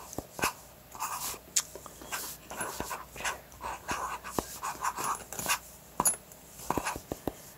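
Stylus scratching and tapping on a tablet screen: irregular light clicks mixed with short scratchy drawing strokes.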